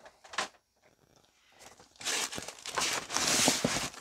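A light knock about half a second in, then from about halfway on a loud crinkling and rustling of packing material being handled.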